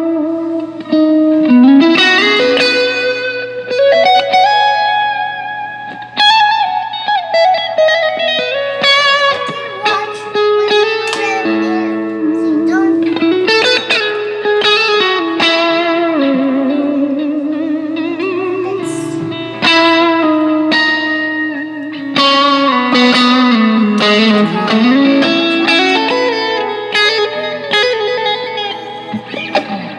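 Squier Vintage Modified Stratocaster electric guitar played through a Zoom G3X multi-effects pedal: a melodic single-note lead line with string bends and vibrato, over a steady low hum. Picked up by a phone's microphone.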